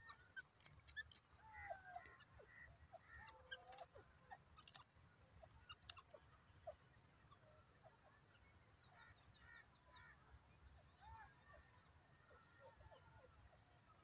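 Faint, soft short calls and chirps of grey francolins foraging, scattered throughout, with a few sharp ticks in the first six seconds.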